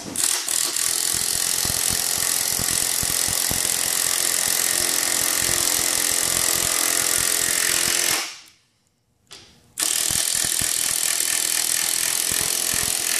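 Cordless drill driving a long GRK structural screw through a standoff base into wood, running steadily under load for about eight seconds, stopping briefly, then running again to seat the screw tight on the sealant.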